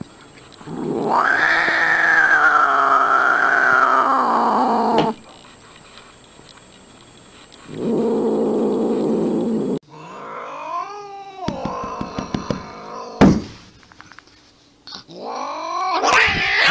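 White Scottish Fold cat yowling: one long drawn-out yowl lasting about four seconds, then a shorter, lower one. After that come other cats' yowls that sweep up and down in pitch, with a sharp thump between them.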